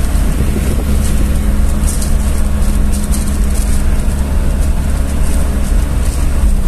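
Engine drone and road noise inside the cabin of a moving vehicle: a strong, steady low rumble with a faint steady hum above it, and a hiss that flares briefly now and then.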